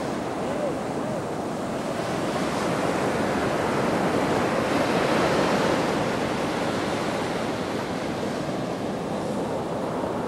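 Steady rushing noise of waves and wind, swelling a little around the middle.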